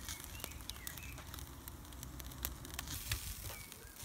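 Wood fire crackling in a wood-fired pizza oven, with scattered sharp pops from the burning wood and embers, and a T-bone steak sizzling on a wire rack above them.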